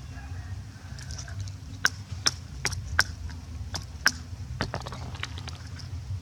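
Sharp clicks and taps of hard objects, about nine in an irregular run from about two seconds in to about five seconds, over a steady low hum.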